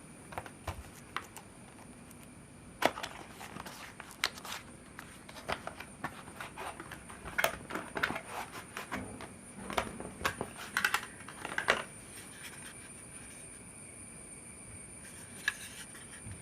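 Hands handling a laptop's hard plastic parts and small components: irregular clicks and taps, busiest in the middle and thinning to a single click near the end, over a faint steady high-pitched whine.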